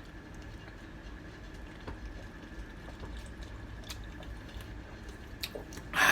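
A person drinking from a can: quiet swallowing and liquid sounds with a few faint clicks, then a loud breathy exhale about six seconds in.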